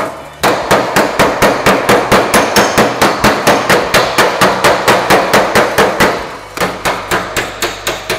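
Hammer tapping the sheet-steel panel of a 1940 Willys hood in a quick, even rhythm of about four blows a second, knocking down an overstretched high spot. The blows stop briefly about six seconds in, then go on more lightly.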